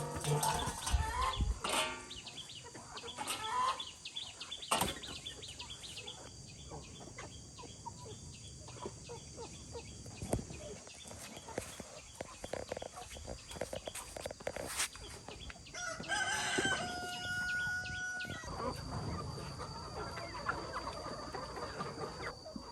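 Chickens clucking, with a rooster crowing once for about two seconds, a little past two-thirds of the way through.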